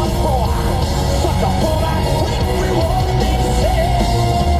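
Loud heavy rock music with a sung vocal line; the singer holds a long note from about three-quarters of the way through.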